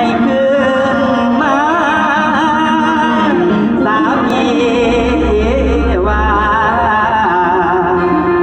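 Loud live Isan (northeastern Thai) folk-pop music over a concert PA: a band with a wavering, ornamented melody and singing. A deep bass note swells about five seconds in.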